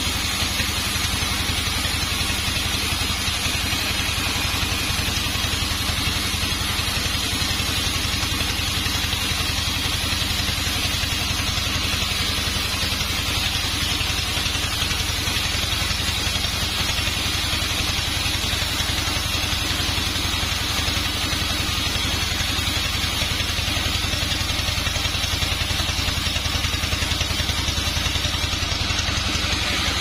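Sawmill band saw running steadily as it cuts through a teak log: a constant machine drone with a fine, even pulse and a hiss above it.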